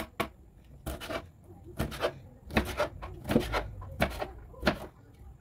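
Knife cutting vegetables on a cutting board, in separate strokes about every three-quarters of a second.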